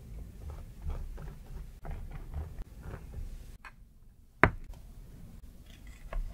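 Silicone pastry brush dabbing garlic butter sauce onto baked scones: a run of soft, sticky little taps. About four and a half seconds in, a metal baking tray is set down on a table with one sharp knock.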